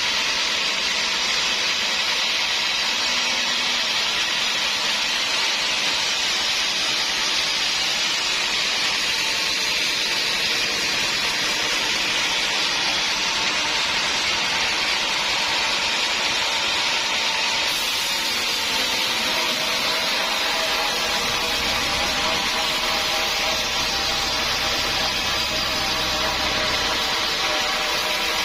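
Sawmill saw running steadily through dense acacia wood, a continuous hissing cutting noise. About two-thirds of the way through, a faint whine and a low rumble join it.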